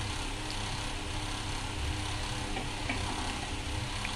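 A steady low rumbling hum with a hiss over it, with a few faint light clicks about three and four seconds in.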